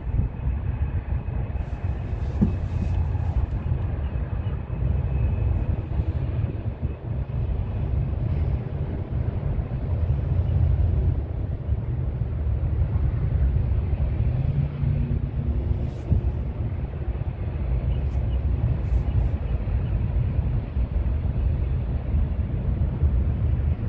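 Distant diesel locomotives of a BNSF freight train running, heard as a steady low rumble.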